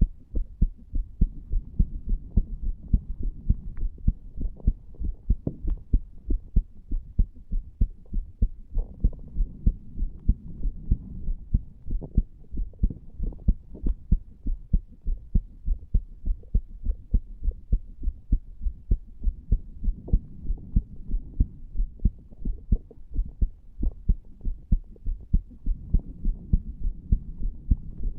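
Human heartbeat recorded on the chest over the tricuspid valve area: a steady, regular train of low thudding beats, with a low hum beneath.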